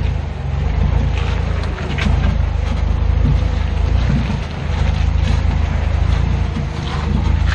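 Jeep Wrangler JK crawling slowly over a rocky trail, heard from beneath the chassis: a steady low engine drone, with tyres grinding over stones and a few sharp knocks from rocks and suspension.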